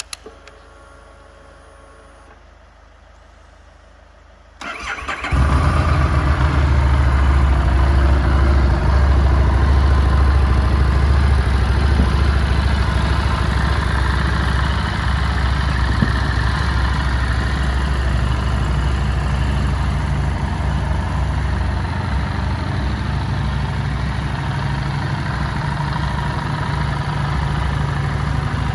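Harley-Davidson Street 750's liquid-cooled V-twin being started: a click and a faint hum for about two seconds as the ignition is switched on, then the starter cranks briefly about four and a half seconds in and the engine catches and settles into a steady idle.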